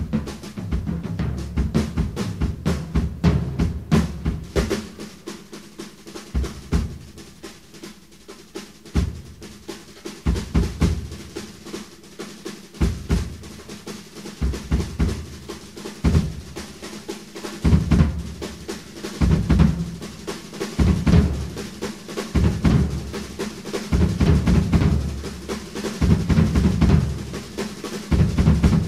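Rock drum kit played solo: quick rolls and snare hits over bass drum. It thins out in the middle, then settles into heavy accented strokes roughly every second.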